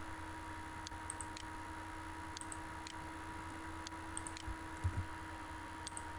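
Faint computer mouse clicks: a dozen or so sharp ticks in small clusters, with two low thuds about four and a half and five seconds in, over a steady faint hum and hiss.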